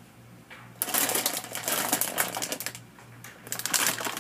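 Crinkly plastic snack bag rustling in irregular bursts as a hand grabs and handles it, starting about a second in. A faint low hum runs underneath.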